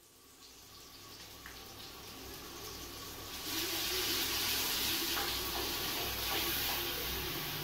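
Food frying in oil in a wok on a gas stove: a steady sizzling hiss with a few small crackles, growing louder over the first few seconds.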